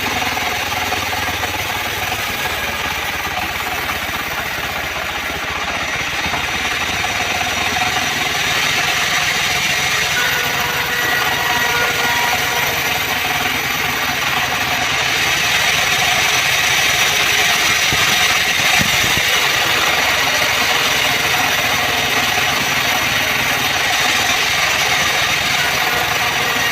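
Homemade bandsaw sawmill running steadily: continuous engine and machine noise, growing a little louder partway through.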